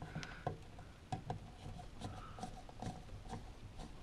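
A screwdriver tightening small screws on a 3D-printed plastic amplifier bracket: faint, irregular clicks and scrapes.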